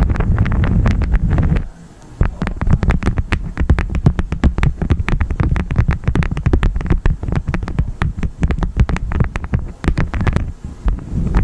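Honeycomb wax crackling and crunching close to the microphone: a dense run of small crackles. A rushing haze of wind on the microphone covers the first second or so and returns near the end.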